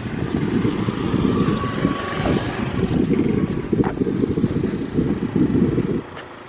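Wind buffeting the microphone in a loud, flickering rumble, with a motor scooter riding past. The buffeting drops away about six seconds in.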